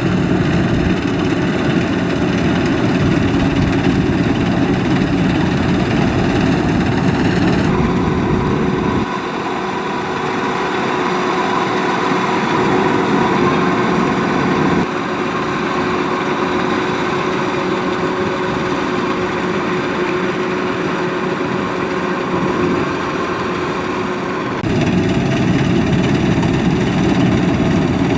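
Kubota DC-93 combine harvester running steadily, its four-cylinder turbocharged diesel engine and machinery giving a continuous drone. The tone and loudness shift abruptly several times.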